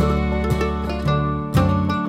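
Background music led by plucked string instruments, with note changes several times a second.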